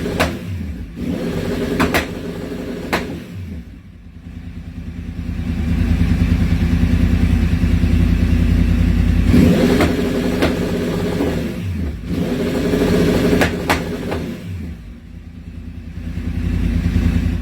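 Yamaha R1's crossplane inline-four with an aftermarket exhaust, revved up and down with several sharp cracks, building to a long high rev in the middle.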